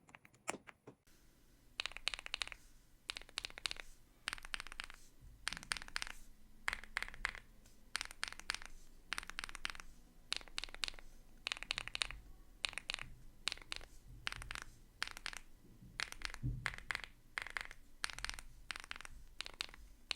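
Typing on a mechanical keyboard with budget linear switches: short, closely spaced bursts of key clacks, about one or two clusters a second, starting about a second in.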